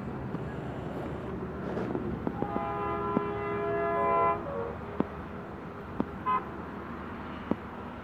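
Distant ALCo WDG 3A diesel locomotive's horn sounding one long chord-like blast about two and a half seconds in, its pitch sagging as it cuts off. A few sharp clicks follow over a steady outdoor rumble.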